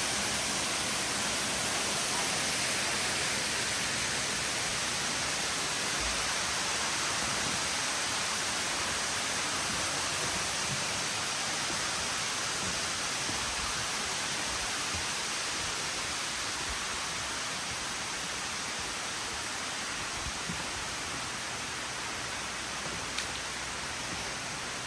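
Steady rushing hiss of a waterfall, which slowly grows quieter.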